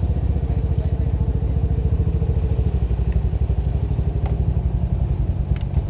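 ATV engine running steadily, a rapid even putter, with a couple of light clicks in the second half.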